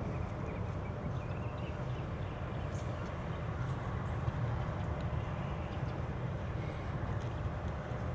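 Steady low background rumble with a few faint light clicks of a small screwdriver working against the plastic door-handle housing to free a retaining clip.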